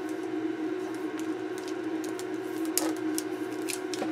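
Small scattered clicks and light rattling as multimeter test leads are unplugged and handled, over a steady hum.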